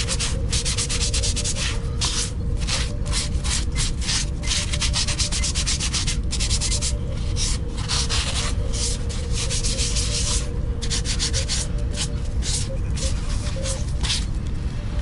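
Fine abrasive sanding pad rubbed by hand over the primed body of a prop, in quick back-and-forth strokes, several a second, each a short dry hiss: smoothing down the primer before painting.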